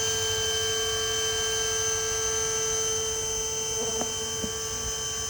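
Steady electrical-sounding hum made of several fixed tones, the strongest a mid-pitched drone, with a low rumbling noise beneath it.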